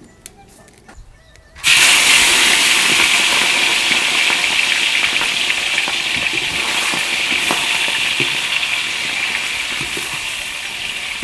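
Food dropped into hot oil in a pan, sizzling loudly: the sizzle starts suddenly about two seconds in and slowly eases.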